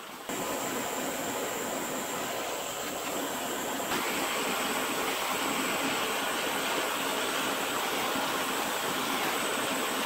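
Hand-held gas torch flame hissing steadily as it heats solder into the seams of a copper radiator core. It starts just after the beginning, with a slight change in its sound about four seconds in.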